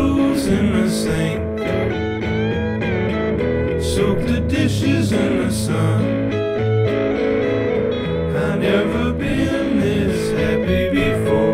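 Song music with guitar to the fore.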